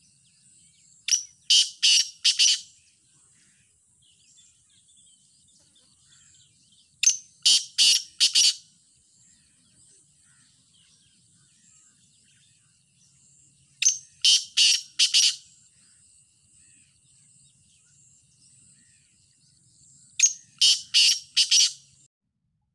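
Black francolin calling four times, each call a loud phrase of four or five sharp notes, the calls about six seconds apart.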